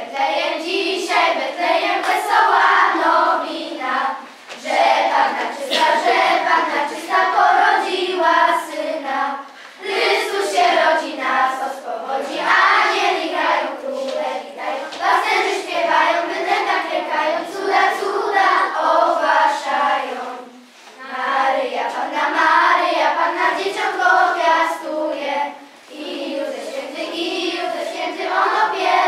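Children's choir singing a Christmas carol, line after line, with short breaths between phrases.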